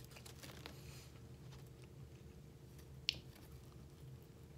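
Close-miked eating sounds from a bagel sandwich with egg, ham, bacon, cheddar and cream cheese: faint wet chewing and mouth clicks, with one sharp click about three seconds in as the sandwich is bitten into. A steady low hum sits underneath.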